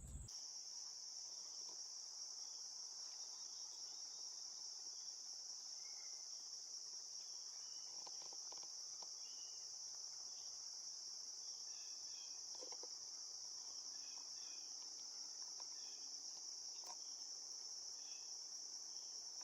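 Steady, high-pitched insect chorus in woodland, an unbroken shrill drone, with a few faint small ticks.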